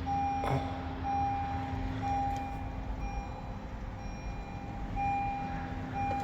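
A vehicle's reversing beeper sounding about once a second, some beeps louder than others, over a steady low hum.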